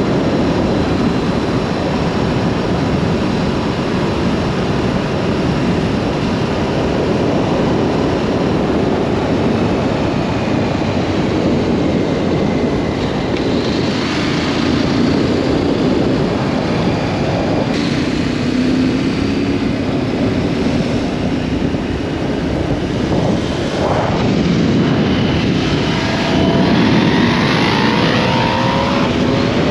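Wind roaring over a motorcycle-mounted camera, with the Yamaha Ténéré 700's parallel-twin engine running underneath. The engine pitch rises several times as the bike accelerates, most plainly in the last few seconds.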